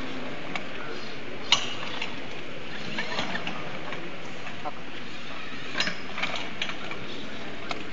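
A small ladder-climbing robot's mechanism clicking and knocking against its metal pipe frame as it climbs: scattered short, sharp clicks, the loudest about a second and a half in, over a steady background noise of a busy hall.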